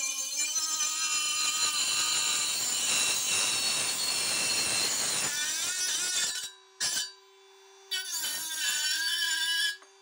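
Parkside PMBSA 20-Li A1 cordless rotary multi-grinder with a small cut-off disc, cutting through a metal profile: a motor whine under a harsh grinding noise for about five seconds. It breaks off around six and a half seconds in, gives a brief burst, then grinds again for about two seconds and stops near the end as the cut is finished.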